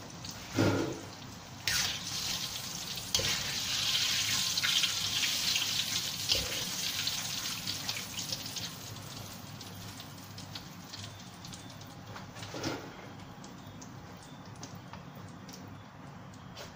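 Battered dory fillet pieces deep-frying in hot oil in a wok: a steady sizzle that fades over the second half as the batch comes out and the oil settles to a light bubbling. A few metal knocks, from the strainer against the wok, stand out over the sizzle.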